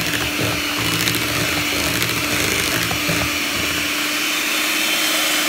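Hamilton Beach electric hand mixer running steadily, its beaters whirring through thick sweet potato pie filling in a ceramic bowl.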